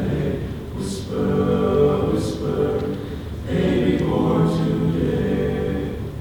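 Men's chorus singing in parts, many voices together, with hissing sung 's' consonants every second or two.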